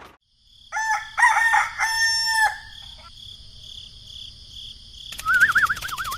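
A rooster crowing once, a multi-part cock-a-doodle-doo about a second in, over a steady high ringing tone. Near the end a wavering, warbling high call starts.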